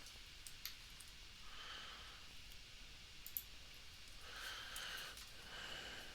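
Faint computer mouse and keyboard clicks, a few scattered single clicks, with soft breathing into the microphone between them.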